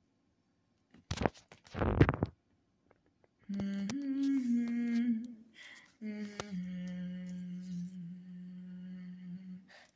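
A person humming two long, steady low notes, the first starting about three and a half seconds in and the second from about six seconds in. Before them, about a second in, a brief loud burst of noise.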